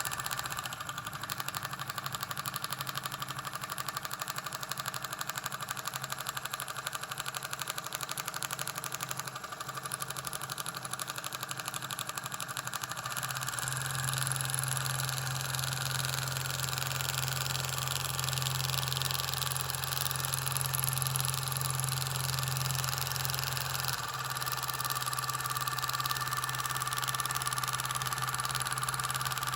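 Dot peen marking machine running, its needle stylus hammering rapidly into the workpiece as a steady mechanical buzz. The buzz grows louder about halfway through and eases back near the end.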